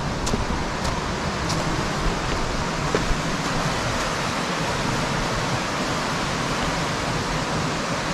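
Steady rush of fast-flowing water from the river and waterfall, with a few faint high ticks in the first two seconds.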